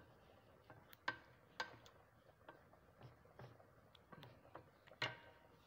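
Wooden spatula knocking and scraping against a frying pan while stirring sautéed mushrooms and bell pepper. The clicks come irregularly, with sharper knocks about a second in, again half a second later, and near the end.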